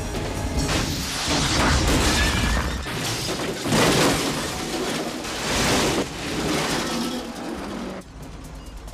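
Film sound effects of a shoulder-fired rocket being fired and the car it hits exploding and crashing, with metal and glass smashing: several loud blasts over about five seconds. They drop away suddenly near the end.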